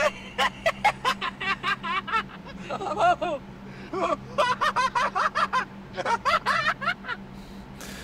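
AI-generated man's laughter from the ElevenLabs sound-effects generator, made for the prompt of a man switching between laughing and crying. It comes in several quick runs of short bursts with pauses between them, and it sounds like more than one person.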